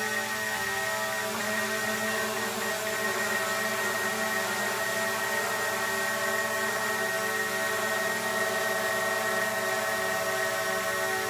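Small foldable quadcopter drone hovering: the steady whine of its spinning propellers, several held tones with a high one on top, shifting slightly as the drone holds its position.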